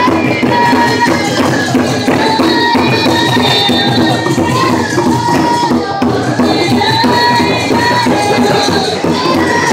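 Young girls singing together in high voices, holding long notes, while beating hide frame drums in a steady beat.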